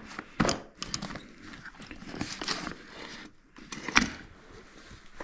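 Handling noise from work on a furnace's draft inducer assembly: scattered clicks, knocks and rustling, with sharp knocks about half a second in and about four seconds in.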